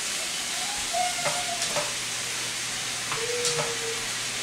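Food sizzling in a frying pan: a steady hiss with a few faint clicks and ticks.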